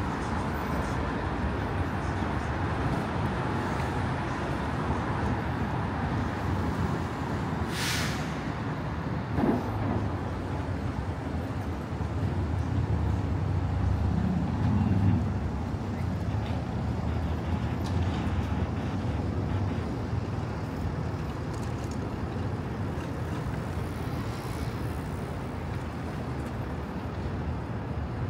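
City street traffic noise, steady, with a short sharp hiss about eight seconds in and a louder low engine rumble of a heavy vehicle passing from about twelve to sixteen seconds in.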